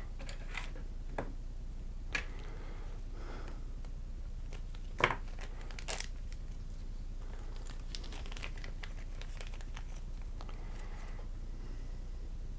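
Pink anti-static plastic bag being handled and opened, crinkling with scattered crackles and a few sharp snaps, the loudest about five seconds in.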